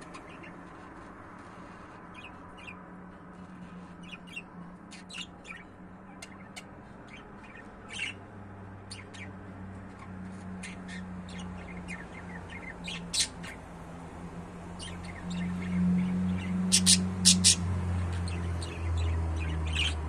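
Pet budgerigars chirping in short, sharp calls, scattered throughout and busiest and loudest near the end. A low steady hum builds underneath in the second half.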